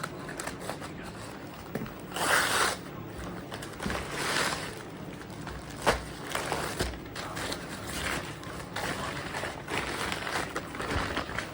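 Packaging being handled during an unboxing: irregular rustling and crinkling, with two louder swishes about two and four seconds in and scattered clicks and knocks.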